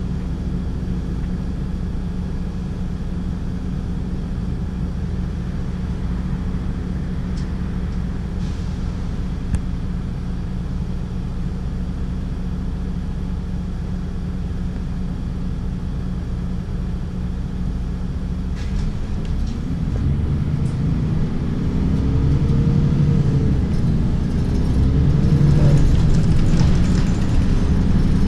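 Mercedes-Benz city bus diesel engine, heard from inside the cabin by the driver's seat: a steady low idle while standing in traffic, then about two-thirds of the way through it revs up with rising pitch and gets louder as the bus pulls away and accelerates.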